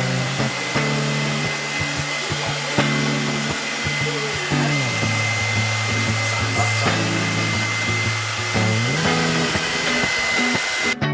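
Grimsteads GSD1100 1200 W hair dryer with turbo motor blowing steadily, a rushing of air with a steady high whine, cutting off suddenly near the end.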